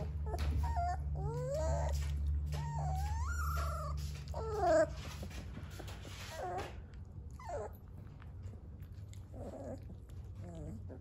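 Three-week-old Dogo Argentino puppies whining and squeaking: a string of short cries that slide up and down in pitch. The loudest comes about four and a half seconds in, and the cries grow sparser and fainter after that. A low rumble runs under the first half.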